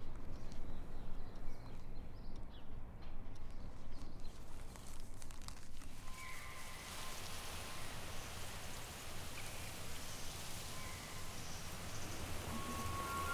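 A low rumble with a few faint clicks, then about six seconds in a steady hiss fades in and holds, with a few brief thin tones over it.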